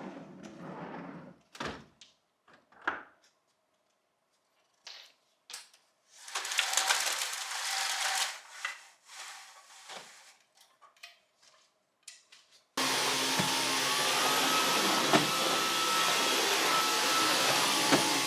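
Scattered knocks, clicks and a stretch of scrubbing or rustling noise. Then, about thirteen seconds in, a vacuum cleaner starts suddenly and runs loud and steady, its motor whine rising a little to a steady pitch.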